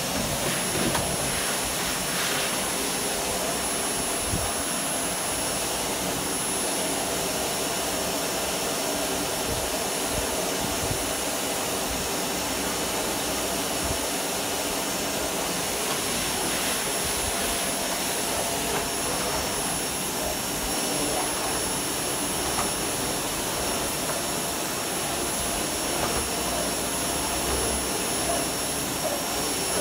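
Canister vacuum cleaner running steadily with a thin high whine, its floor brush being pushed back and forth over a rug.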